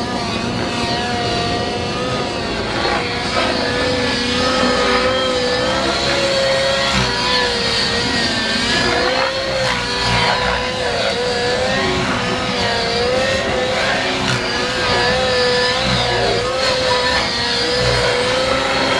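Small engine of a radio-controlled model aircraft running at high revs, its pitch rising and falling over and over as it flies.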